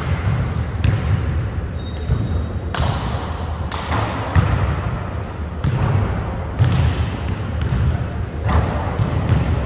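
Basketballs bouncing irregularly on a hardwood gym floor, each bounce a sharp thud that echoes in the hall.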